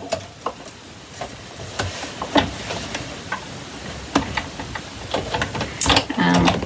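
Hand-cranked die-cutting machine being turned to roll a scalloped die and card through its rollers: a run of irregular clicks and knocks.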